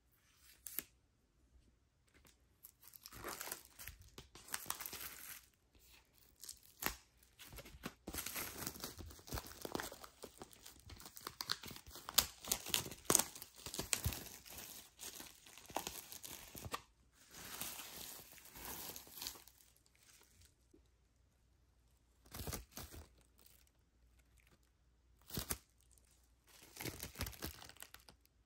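Clear plastic shrink wrap on a vinyl LP jacket being slit with a knife, then torn and peeled off by hand. It crinkles and tears in irregular bursts, busiest in the middle, with a few shorter bursts near the end.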